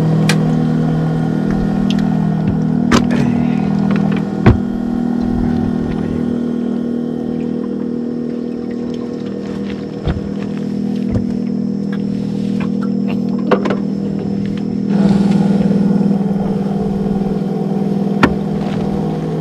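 Small boat's outboard motor running steadily at low speed, its hum getting louder about fifteen seconds in. Now and then there is a sharp knock or click.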